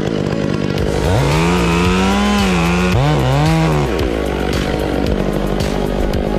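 Chainsaw idling, revved up to full throttle about a second in and held for roughly three seconds, with a brief dip in pitch as it works through the wood, then dropping back to idle.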